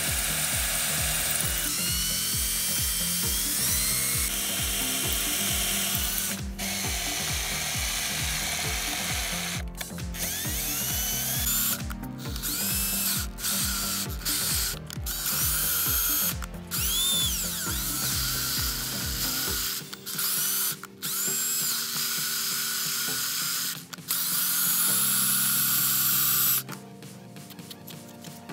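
Ridgid cordless drill boring a hole in the metal of a milling machine's saddle with a freshly resharpened twist bit, run in spurts with many short stops and its speed rising and falling; it stops a couple of seconds before the end.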